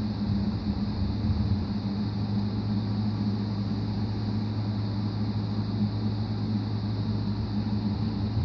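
A steady low mechanical hum with an even hiss, unchanging throughout, from a running motor or appliance.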